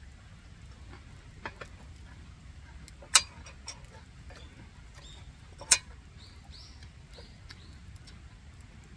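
Two sharp knocks and a few quieter clicks, as of small objects being handled or set down, with faint high chirps like a bird's in the background.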